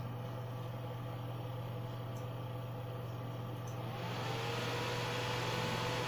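Twin cooling fans of an ASUS Radeon HD 7850 graphics card running with a steady low hum and air noise. About four seconds in they speed up: a whine rises in pitch and levels off as the air noise grows louder.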